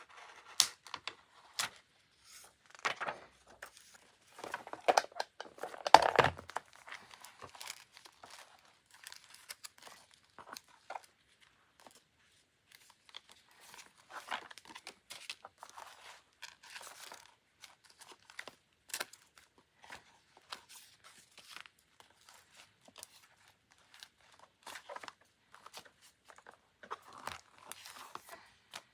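Paper and sticker sheets being handled close up: intermittent peeling, tearing and crinkling with light taps, loudest about six seconds in.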